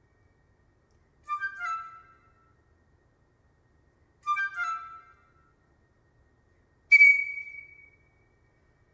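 Solo piccolo playing sparse, broken phrases: two short flurries of quick notes separated by silences, then one sharply attacked high note, the loudest sound, that rings away over about a second.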